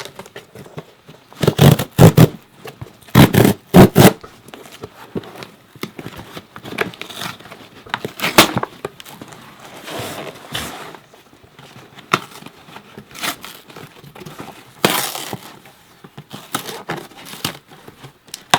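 Cardboard shipping box being torn open by hand: loud ripping bursts about two and four seconds in, then scraping, tearing and crinkling of the cardboard and packing as it is worked at.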